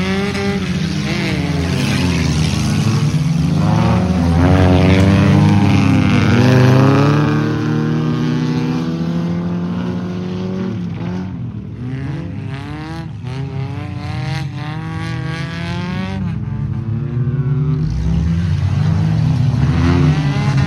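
Several old banger race cars with their engines revving hard, the pitch of each engine climbing and dropping through the gears as they race past. The engine noise is loudest about six seconds in, falls back as the cars pull away, and swells again near the end.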